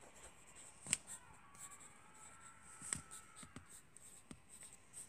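Faint scratching of a pen or pencil drawing on paper, with a sharp click about a second in and another near three seconds.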